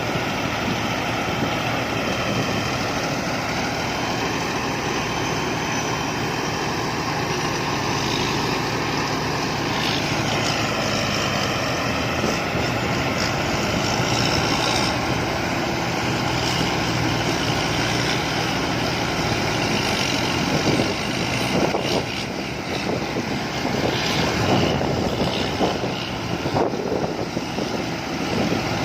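Kaset Pattana combine harvester running steadily under load. Its engine note dips and rises about ten seconds in, with more clatter in the last third.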